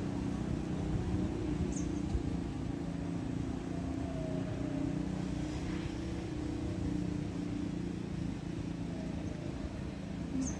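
Steady low mechanical hum, like a distant engine running, with two brief faint high chirps, one about two seconds in and one near the end.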